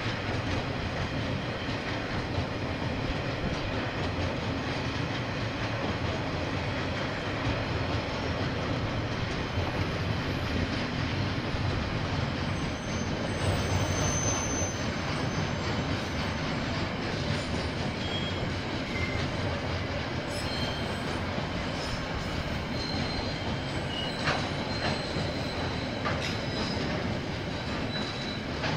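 KiwiRail train passing, its steel wheels rumbling steadily along the rails, with a few brief high-pitched wheel squeals in the second half.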